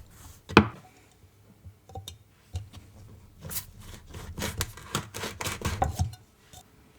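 Light handling sounds as a clay top is pressed onto a slime container: a sharp click about half a second in, then a run of soft taps, clicks and rubbing.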